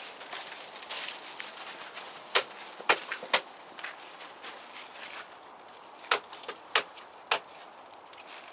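Six sharp knocks or clicks: three between two and three and a half seconds in, then three more between six and seven and a half seconds, each about half a second apart.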